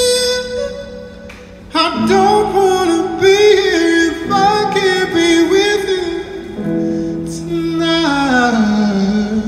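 A man singing into a microphone over sustained backing chords, his lines sliding and running between notes. There is a short pause about a second in, and a long falling run near the end.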